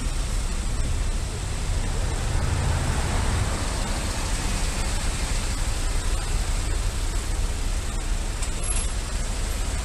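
Steady low rumble of road traffic in a slow queue of cars, taxis and buses, heard from a motorcycle, with an even hiss over it.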